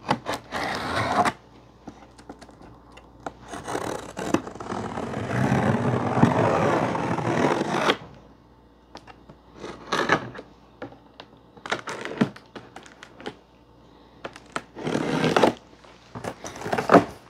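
Ice auger's cardboard shipping box being opened by hand: scraping and rustling of cardboard and packing. A long stretch of scraping in the middle, then shorter scrapes and a few knocks.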